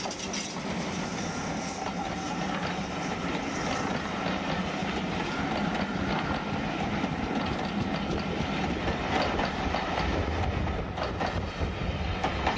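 Passenger coaches of a steam-hauled train rolling past close by, their wheels clattering over the rail joints.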